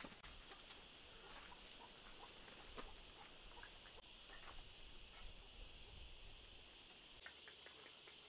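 Steady high-pitched drone of insects in the background, with a few faint ticks and rustles scattered through it, more of them near the end.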